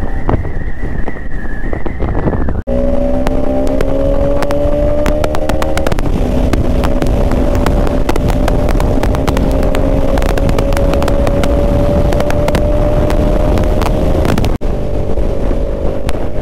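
Bajaj Pulsar RS200's single-cylinder engine running at road speed under the rider, with heavy wind buffeting on the microphone. The engine note climbs slowly as the bike gathers speed. The sound breaks off abruptly about three seconds in and again near the end.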